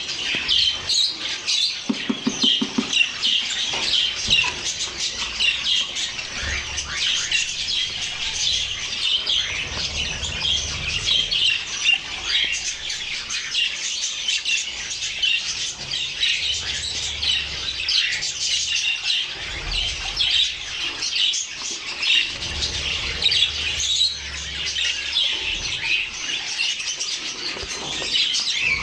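A flock of pet budgerigars chattering, with many short chirps, squawks and warbles overlapping continuously.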